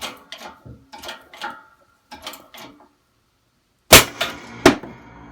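Harbor Freight 20-ton hydraulic shop press being pumped, giving a string of short creaking clicks. About four seconds in comes a very loud bang as the stuck steering shaft lets go under pressure, then a second sharp clank as the old pusher rod flies down.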